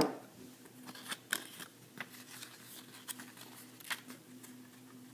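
Paper certificate booklet handled and its pages flipped: a sharp knock at the very start, then a handful of small crisp clicks and rustles of paper over a faint steady hum.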